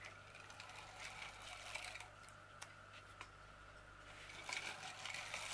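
Faint handling of double-sided tape being applied by hand: a few light clicks, then a soft rustling scrape near the end.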